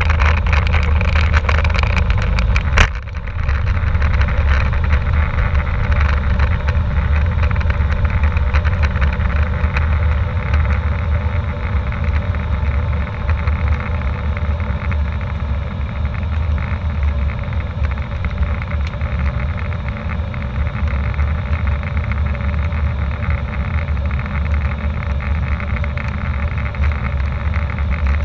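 Cabin noise of an Airbus A320 taking off: a loud rumble with rapid rattling from the wheels on the runway, then a sharp knock about three seconds in as the wheels leave the ground. After that the rattling stops and there is a steady roar of the engines at climb thrust and the rushing air.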